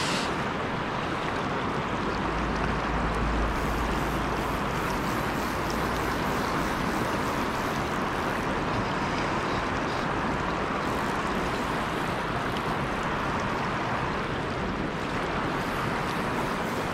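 Steady rush of river water flowing over a riffle, with a low rumble on the microphone for a few seconds starting about two seconds in.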